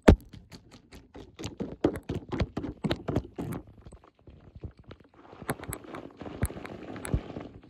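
Raindrops hitting the phone close to its microphone: irregular sharp taps throughout, with a soft rain hiss coming in about halfway through.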